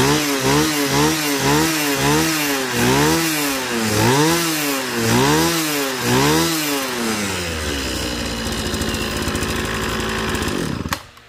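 Kawasaki TH34 34cc two-stroke, air-cooled brush cutter engine being revved in quick blips, about two a second, for some seven seconds. It then settles to a steady idle and cuts out suddenly near the end.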